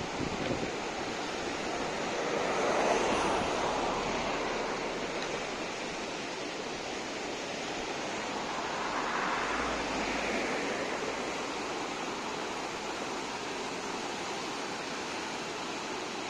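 Dam spillway outflow rushing down a wide river over rocky rapids: a steady wash of water noise that swells louder about three seconds in and again around ten seconds.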